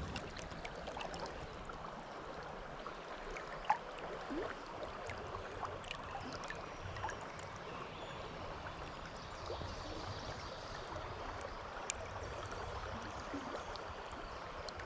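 Steady rushing and burbling of a mountain trout stream, with two short sharp clicks, one about a quarter of the way in and one about three-quarters of the way in.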